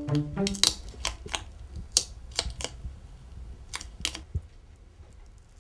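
Fingernails picking and scraping at the label of a ketchup bottle: irregular small clicks and scratches, a few a second, thinning out towards the end.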